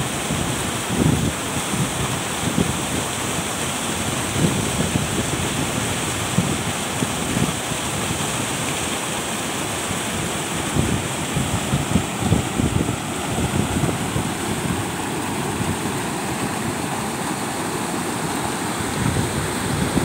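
Waterfall pouring down a rock face: a steady rush of falling water, with gusts of wind buffeting the microphone.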